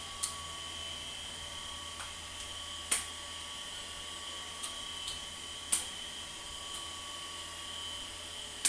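Steady hum and whine of a household electric fan running, with a few sharp taps standing out above it, the loudest about three seconds in and at the very end.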